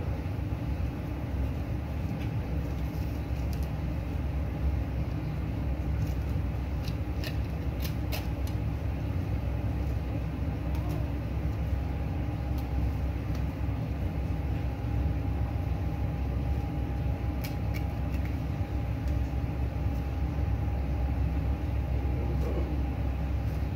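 Steady low mechanical hum with a faint steady tone, and a few faint clicks about a third of the way in and again about three quarters through.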